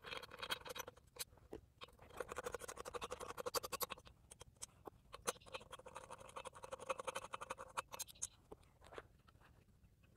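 Ratchet wrench with a star (Torx) bit clicking as it undoes the mounting nuts on a removed EGR valve assembly: faint, rapid clicking in several runs with short pauses.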